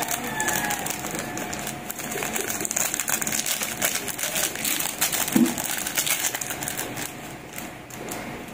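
Plastic Ajinomoto MSG sachet crinkling as it is shaken and emptied over a bowl of seasoning.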